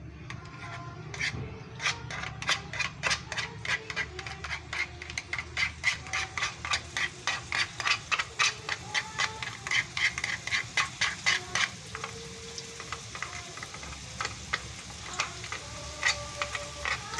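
Metal spatula stirring and scraping chopped onions frying in a pan, in quick regular strokes of about four a second that slow and soften after about 11 seconds and pick up again near the end, with a faint sizzle underneath.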